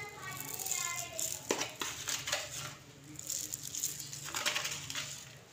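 A metal spoon clinking and tapping against a stainless steel bowl as salt is spooned onto a chicken marinade, a few sharp clicks about a second and a half to two and a half seconds in.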